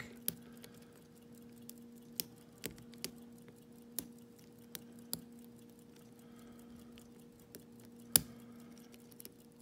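Lock-picking tools working inside a pin-tumbler lock cylinder: scattered light metallic clicks and ticks as a short hook pick works the pins under tension, the sharpest click about eight seconds in. A steady low hum runs underneath.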